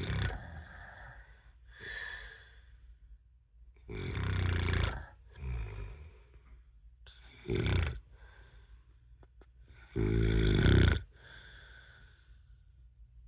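A sleeping person snoring: loud snores every few seconds, the longest about ten seconds in, with softer breaths between.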